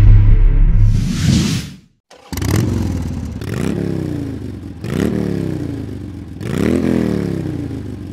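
A deep rumble with a whoosh for the logo, cutting off about two seconds in; then a motorcycle engine revved four times, each rev rising quickly in pitch and dying away.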